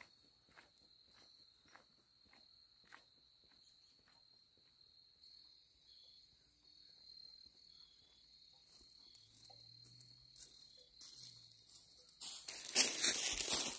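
Footsteps crunching through dry fallen leaves, the loudest sound, starting about twelve seconds in. Before that there are faint, evenly paced footsteps on a paved driveway that fade away, under a steady high insect trill.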